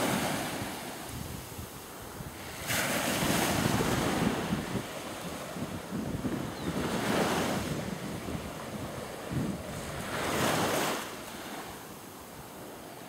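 Small waves breaking and washing up a sandy beach, the hiss of the surf swelling three times, with wind buffeting the microphone.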